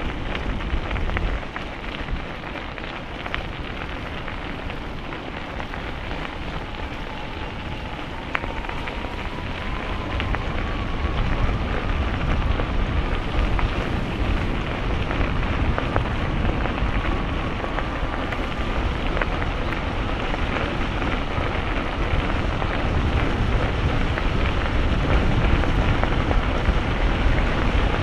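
Riding noise from a bicycle picked up by a GoPro: wind buffeting the microphone and tyres rolling on the path, with small clicks and rattles. A faint whine slowly rises in pitch through the middle, and the rush grows louder after about ten seconds.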